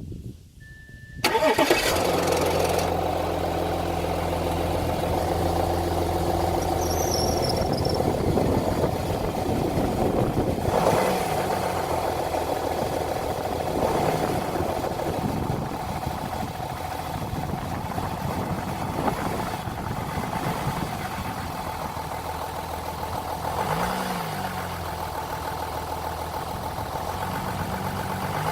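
Audi 3.0 TDI V6 diesel cold start: after a short high beep, the engine starts abruptly about a second in with a brief rattle, then settles into a steady idle. The owner asks whether the start-up rattle is the timing chain or its tensioner.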